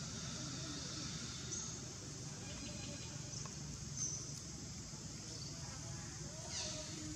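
Steady outdoor ambience of insects droning, with a few faint high chirps and one short high call falling in pitch near the end.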